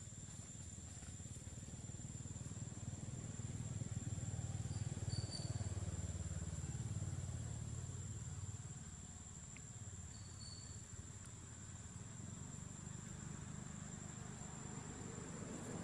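Low hum of a passing motor vehicle's engine, rising in pitch and level to a peak about five seconds in and easing off by about nine seconds, over a steady high whine.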